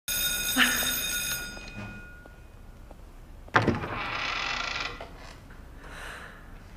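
A bright chime rings out at once and fades away over about two seconds. About three and a half seconds in comes a sharp knock, followed by about a second of hiss.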